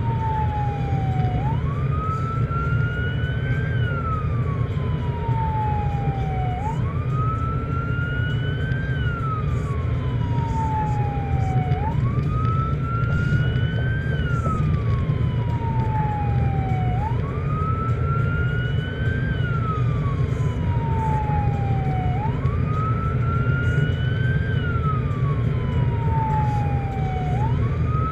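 Electronic emergency siren on wail, sweeping slowly up and down about once every five seconds, over steady road and engine noise heard from inside a car's cabin.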